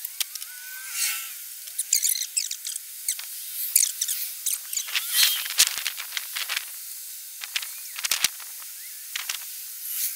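Storm wind gusting through trees: a thin hiss broken by irregular rustles and crackles, with no low rumble.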